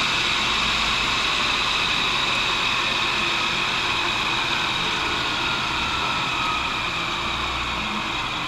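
1942 Cincinnati No. 2 tool and cutter grinder running with a steady whir that slowly gets quieter.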